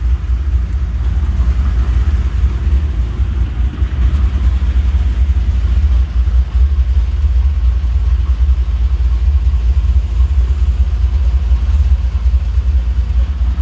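A Chevy C10's LS V8 engine idling: a steady low rumble.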